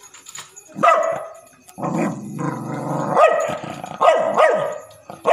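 A dog barking at a grasshopper in short, sharp barks, about five in all, with a low growl from about two to three seconds in.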